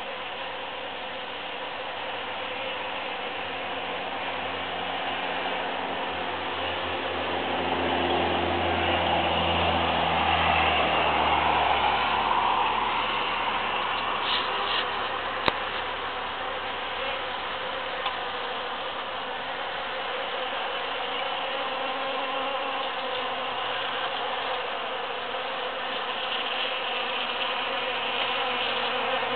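Many bees buzzing as they forage in large cactus flowers, a dense steady hum that swells louder about eight to twelve seconds in. A single sharp click near the middle.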